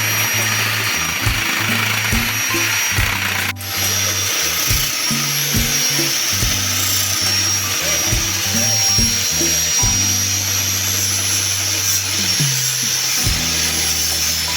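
Background music with a bass line and steady beat, over the steady high whine of an electric grinder sanding wood.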